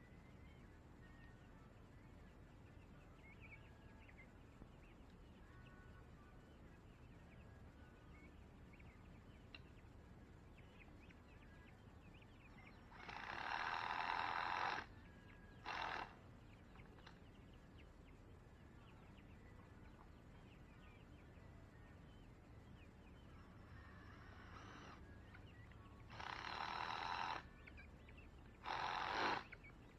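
A handheld power drill running in four short bursts, about two seconds, half a second, a second and a half and under a second long, driving fasteners into the coop's wooden base frame. Faint bird calls in between.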